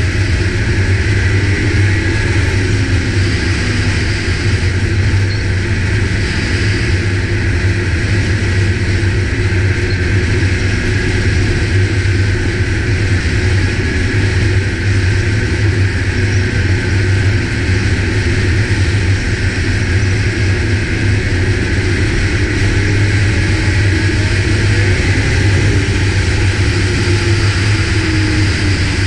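Ski-Doo snowmobile running at a steady cruising speed, heard from the rider's seat: a constant engine and track drone with no revving or let-up.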